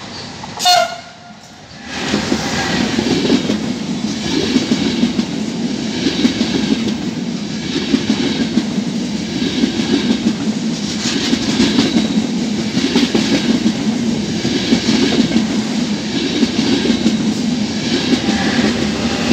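The E402B electric locomotive sounds a short horn blast about half a second in. From about two seconds the Frecciabianca passenger train passes close at speed: loud wheel-on-rail running noise with clickety-clack, swelling and fading every second or two as the coaches go by.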